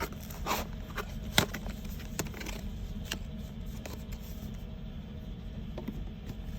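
Handling noises while unboxing: packaging and small accessory parts scraping and clicking, several sharp clicks in the first three seconds and fewer after, over a steady low hum.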